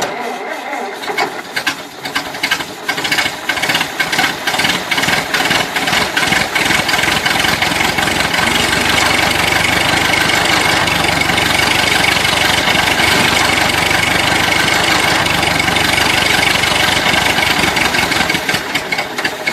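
Old car engine being started: the starter cranks and the engine fires unevenly for the first several seconds, then it catches and settles into a steady run about six seconds in.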